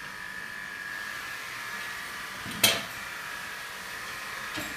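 Steady electrical hum from a running machine, with one sharp click a little past halfway through.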